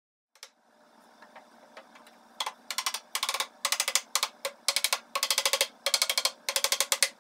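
Mallet striking a wooden drawer divider in a mahogany case, tapping it home. After a faint hum and a few light knocks, the taps come about two and a half seconds in as rapid bursts of quick sharp knocks.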